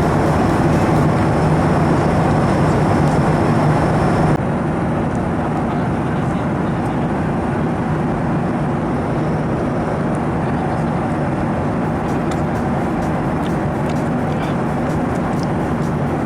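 Steady cabin noise inside a Boeing 737-800 airliner: jet engine and airflow noise with a low hum. The level drops a little about four seconds in.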